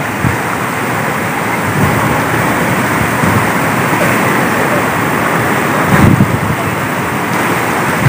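Water pouring over a long, low weir and churning through the shallows below it: a steady rushing sound.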